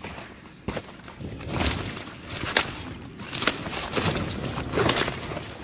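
Kale leaves being snapped off the stalks and handled: a run of irregular sharp snaps with leafy rustling in between.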